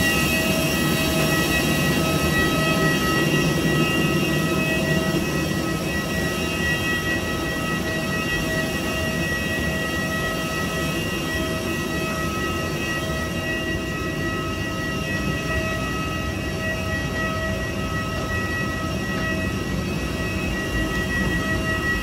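Steady rush of air with a constant high whine from a parked airliner's running systems, heard from the jet bridge and cabin door during boarding. A little louder in the first few seconds.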